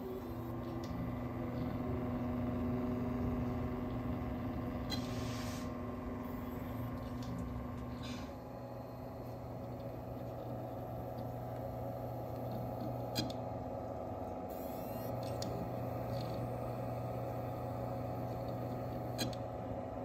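Running desktop computer: steady hum of its CPU cooler fan and spinning Seagate Barracuda hard drive, with two short sharp clicks in the second half.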